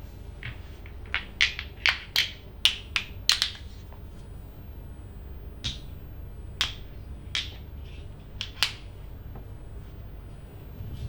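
Sharp snapping sounds from the massage: a quick run of about eight snaps, then five more spaced out.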